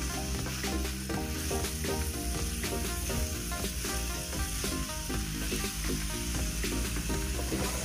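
Beef and vegetables sizzling in a frying pan while a wooden spatula stirs them, scraping and tapping against the pan, with background music underneath.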